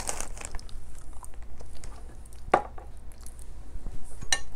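Close-up eating sounds: chewing, a plastic bag rustling at the start, and a few sharp clicks of dishes or cutlery, the clearest about halfway through and near the end.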